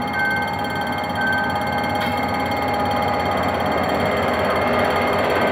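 GM GT22CW-2 diesel-electric locomotive passing close by with its engine running and a rumble of wheels on the rails, growing slowly louder. Over it, a level-crossing warning alarm beeps until about a second and a half in, with a steadier high tone held throughout.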